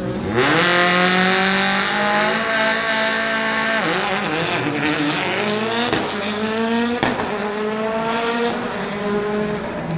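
Rally car engine accelerating hard, its note climbing through the revs and dropping at three quick upshifts, about four, six and seven seconds in.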